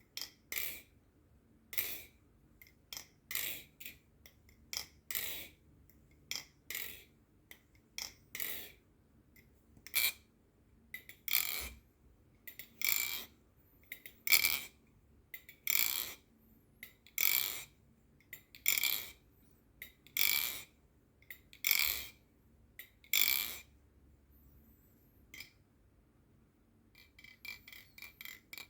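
Squid Industries Tsunami balisong trainer being flipped: its handles click shut in a series of sharp clicks, about one a second and sometimes doubled, a muted and quiet sound. After a pause of a few seconds near the end, quicker, lighter clicks start.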